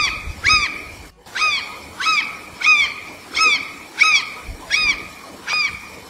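Azure Jay calling: a short note repeated about ten times, roughly every two-thirds of a second, each one rising and then falling in pitch.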